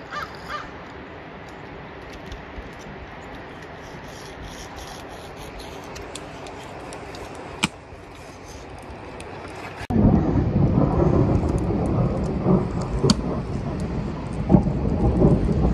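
Quiet outdoor background with a single sharp click just before the middle. About ten seconds in, a loud, gusting low rumble of wind buffeting the microphone starts suddenly.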